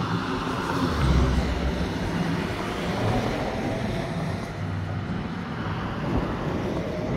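Road traffic at an intersection: cars and a pickup truck driving through, with engine and tyre noise passing close. It is loudest about a second in.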